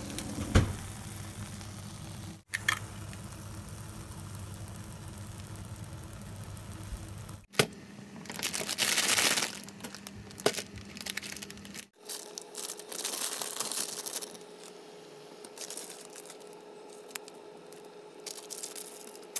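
Plastic instant-noodle packaging, a Samyang Buldak packet and its sauce sachet, crinkling and tearing open in two louder bouts about halfway through, with a few sharp clicks, over a steady low hum.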